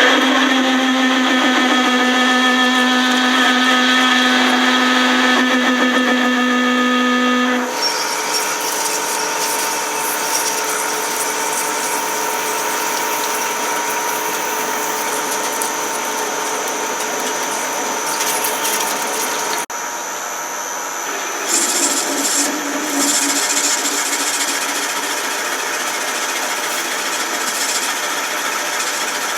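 Metalworking machine tool running steadily with a motor hum and whine. About eight seconds in, its tone pattern changes to a different steady whine, and a little later there is a short stretch of louder scraping, as of a cut.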